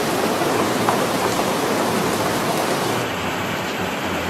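Floodwater from an overflowing river rushing past: a steady noise of moving water, which turns a little quieter and duller about three seconds in.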